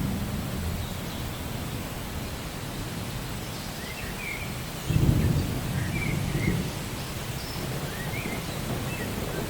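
Steady rain hiss with a low rumble of thunder breaking in about five seconds in and fading over a couple of seconds. Birds chirp in short rising notes, repeated through the second half.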